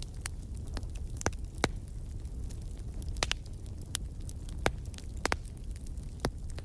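Wood fire burning in a fireplace: a steady low rumble of the flames with irregular sharp crackles and pops of the burning logs, a few louder snaps scattered through.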